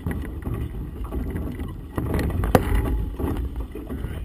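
A cloth flag flapping hard in gusty wind close to the microphone, with irregular sharp snaps, the loudest about two and a half seconds in, over a low rumble of wind buffeting the microphone.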